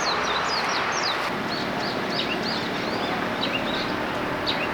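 Small birds chirping in quick, high, repeated calls throughout, over a steady background hiss that eases about a second in.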